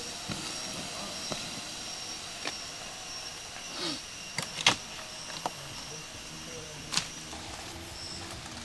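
Water poured from a plastic bottle onto campfire embers, hissing as it turns to steam and dying away, then a few sharp snaps, the loudest about four and a half seconds in and another near seven seconds.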